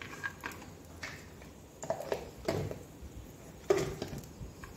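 A wooden spatula stirring cashews and raisins in a frying pan, with a few short, soft knocks and scrapes against the pan; the loudest comes near the end.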